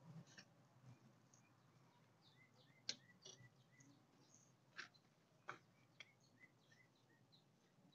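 Near silence, broken by about four faint sharp clicks and a few faint short high chirps.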